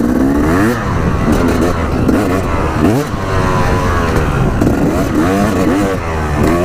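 Dirt bike engine under riding load on a trail, its pitch rising and falling again and again as the throttle is worked and the rider shifts gears.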